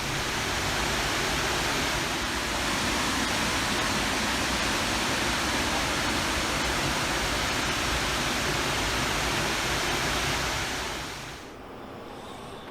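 Steady rushing of fast river water, an even hiss with no let-up; near the end it drops suddenly to a much quieter, duller hush.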